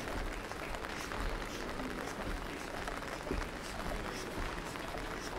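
Steady rain falling, an even hiss, with faint voices in the background.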